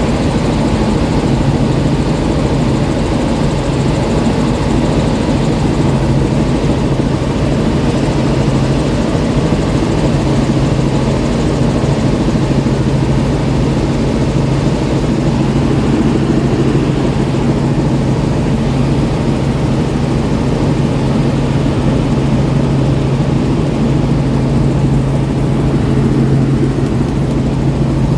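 Helicopter engine and rotor running steadily, with a constant low hum and no change in level.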